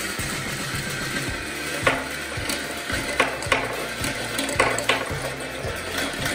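Glass marbles rolling around a large metal funnel, a loud steady rolling rumble. From about two seconds in there are half a dozen sharp clacks as marbles drop out through the bottom tube onto the wooden pegged board.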